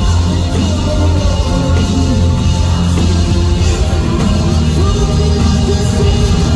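Loud live pop-rock concert music: a band with heavy bass and a singer, with singing throughout.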